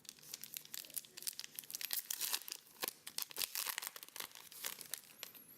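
Foil wrapper of a Pokémon booster pack crinkling and tearing as it is ripped open, with a rapid, irregular crackle.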